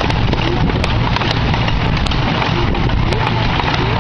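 16-inch gauge gasoline-powered park train running, heard from aboard: a steady low rumble with frequent irregular clicks and clacks from the wheels on the track.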